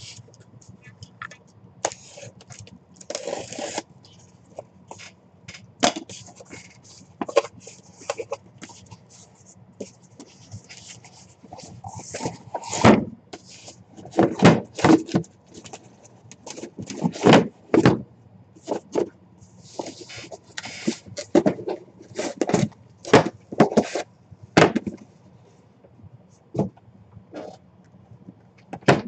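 A cardboard shipping case being slit open and its flaps pulled back, with scraping and rustling, then a run of sharp knocks and thuds as the sealed cardboard product boxes inside are lifted out and set down on the table.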